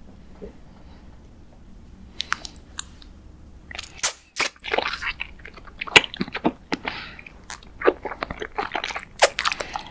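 Close-up mouth sounds of biting and chewing a flat sheet of pink jelly noodle: sharp wet clicks and smacks. They start about two seconds in and come thick and fast in the second half.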